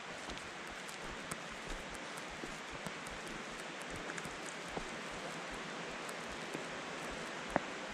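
Steady rush of creek water, with a hiker's footsteps on the dirt and rock trail as light, irregular taps and one sharper click near the end.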